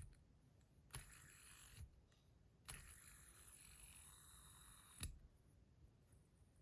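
Near silence broken by a few faint clicks of a bronze Modusworks Mini Ergo bar fidget spinner being handled, with a soft whir from its bearing between some clicks as it is flicked and stopped.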